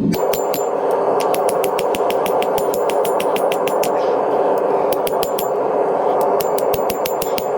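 Gas forge burner running: a loud, steady rush of flame starting abruptly, with runs of quick sharp ticks laid over it, while the knife steel reheats.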